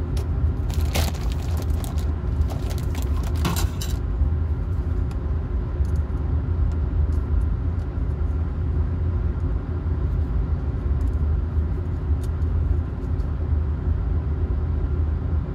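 Clear plastic grain bag crinkling and rustling with a few light clicks, mostly between about one and four seconds in, over a steady low machine hum. Sparse faint clicks follow from handling the tweezers and agar dish.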